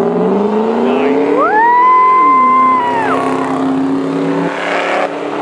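Ford SVT Lightning and cammed Dodge Ram SRT-10 pickups launching from a drag strip start line at full throttle. Engine pitch rises, then drops at gear changes about two and four and a half seconds in. A high steady whine rises sharply, holds for about a second and a half in the middle, then falls away.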